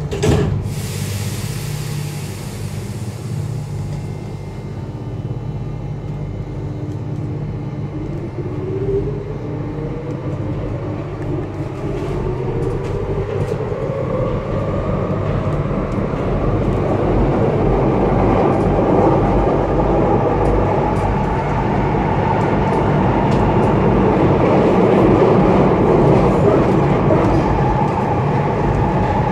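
Alstom MF77 metro train with thyristor chopper control pulling away from a station: a brief knock at the start, then a steady low hum under a whine that rises in pitch from about eight seconds in as the train accelerates, with running noise growing louder toward the end.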